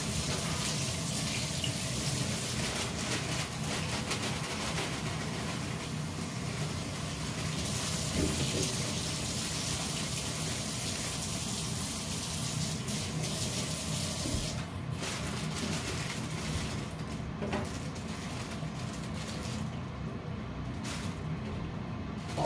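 Water running from a kitchen tap into the sink while bean sprouts are rinsed, a steady splashing flow that changes briefly a couple of times near the end.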